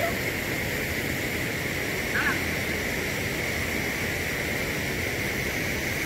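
Steady rush of flowing water from the river's waterfall and rapids.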